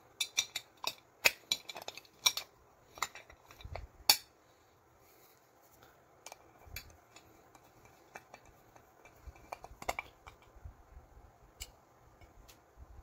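Glass pot lid, its knob and screw clicking and clinking together as the knob is fitted and screwed on by hand with a screwdriver. A quick run of sharp clinks comes in the first four seconds, then sparser small clicks while the screw is turned.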